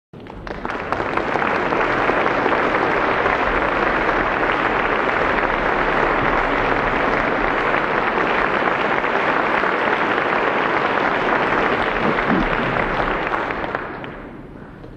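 Large concert-hall audience applauding: steady, dense clapping greeting the string quartet as it takes the stage, dying away near the end as the players settle to play.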